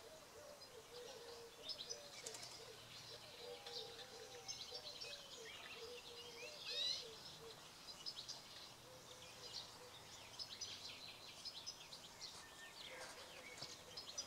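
Faint birdsong: many short, high chirps throughout, with a low wavering call repeated through the first five seconds and one louder chirp about seven seconds in.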